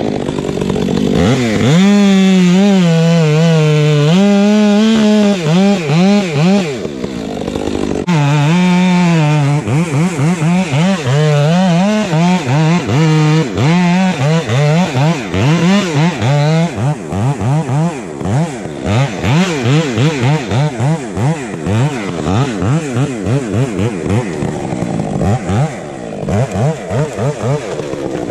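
Stihl MS 462 two-stroke chainsaw with a Westcoast Saw Bark Box dual-port muffler, running at full throttle through felling cuts in a tree trunk. The engine note wavers under load for the first half. Later it revs up and down in quick repeated sweeps.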